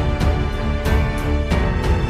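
Background theme music with a steady beat and held chords.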